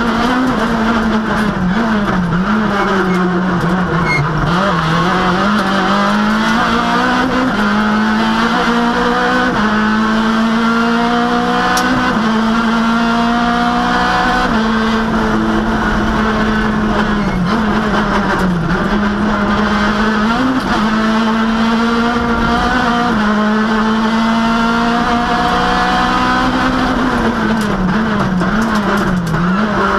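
Citroën Saxo rally car's engine at racing speed, heard from inside the cabin. The revs climb and drop back again and again through gear changes, and sag several times as it slows for bends.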